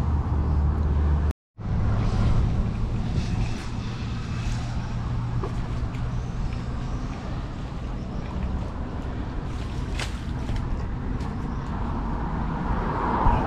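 Steady low rumble and hum of outdoor background noise, with a few faint clicks and a brief sharp sound near the end. The sound cuts out completely for a moment about a second and a half in.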